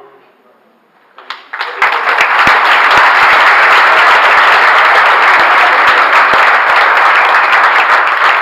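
An audience applauding: after about a second of quiet, a few scattered claps, then full, steady applause from many hands.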